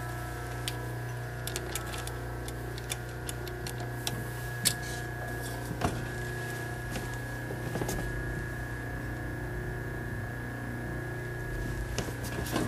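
Singer 20U industrial zigzag sewing machine's electric motor humming steadily while the needle is stopped, with a few light clicks.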